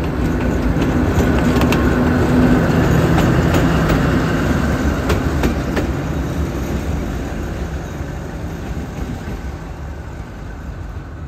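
A pair of Alstom diesel-electric locomotives running light with no train: engine drone with a few sharp clicks of wheels over rail joints. Loudest about two seconds in, then fading steadily as they move away. One of them is heading back for maintenance after failing in service.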